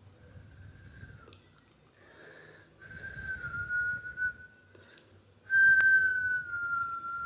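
A person whistling long held notes, each a single clear tone sliding slightly down in pitch, the last one loudest. A sharp click comes just as that last note begins.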